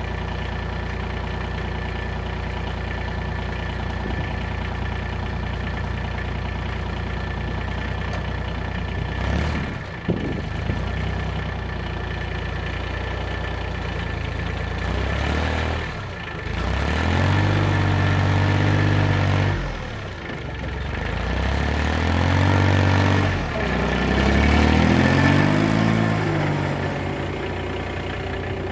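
Tractor engine running steadily at idle, then revving up in three surges in the second half, each rising in pitch, as it works the snowplow blade.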